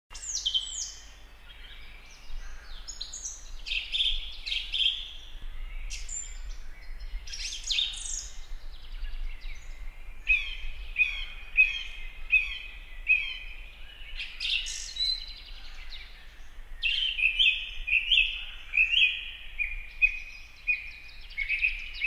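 Wild birds chirping and singing: quick falling whistled notes, then from about halfway through, runs of short repeated chirps, over a faint low hum.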